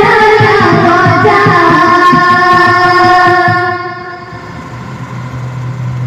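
Boys' qawwali voices holding a long final note together over hand-drum strokes. The music drops away about three and a half seconds in, leaving a low steady hum.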